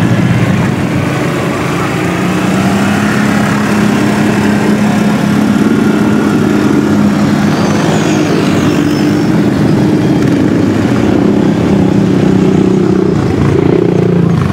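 Quad ATV engines running at fairly steady revs, with only small rises and falls in pitch.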